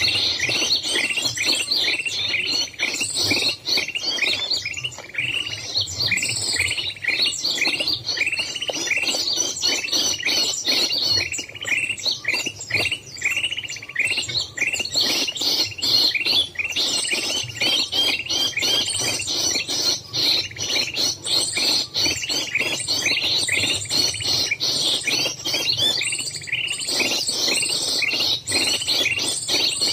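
Small songbirds chirping in a dense, continuous chatter: rapid, sharp notes several times a second without a break.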